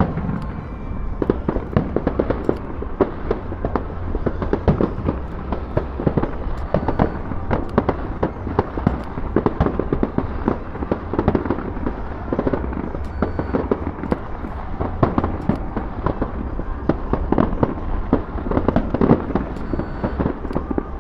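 Fireworks display going off in a dense, continuous barrage of bangs, several a second with no let-up, over a steady low rumble.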